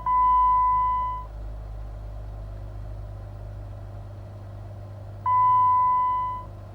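Electronic warning chime from a Jeep Wrangler JK's dash: a steady single-pitch beep sounding twice, once at the start and again about five seconds in, each lasting about a second and fading out, over a low steady rumble.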